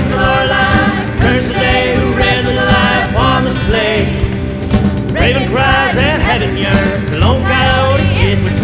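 Country-style song with a singing voice over instruments.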